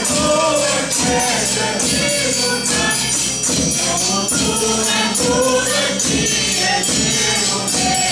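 A folk group of men and women singing a traditional Portuguese Reis (Epiphany) carol together. A drum and other percussion keep a steady beat.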